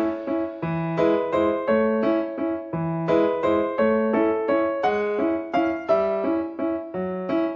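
Background piano music: a light melody of quick, evenly paced notes over a bass line that repeats every couple of seconds.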